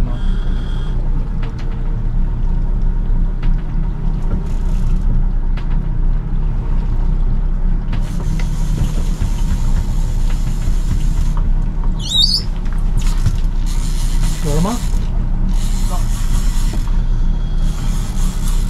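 Boat engine running steadily at trolling speed, a constant low hum. Several spells of rushing hiss come over it, and a short high squeal sounds about twelve seconds in.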